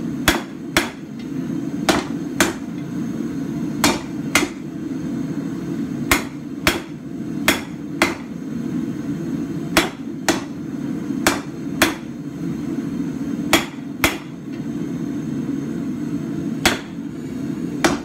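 Hand hammer striking a red-hot steel bar on an anvil during forging, about one sharp blow a second, irregular and often in quick pairs. The blows ring over a steady low hum.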